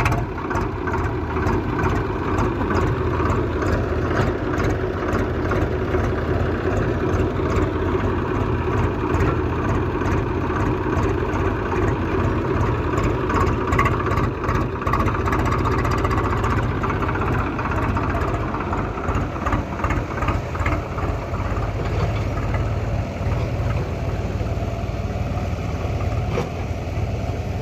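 Diesel engine of a tractor or backhoe running steadily.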